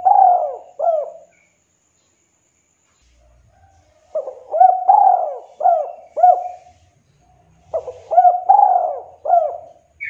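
Spotted dove (tekukur) cooing its 'kuk 2' song: short phrases of four or five rising-and-falling hooting coos. One phrase ends just after the start, then two more follow at about four and eight seconds in, with pauses between.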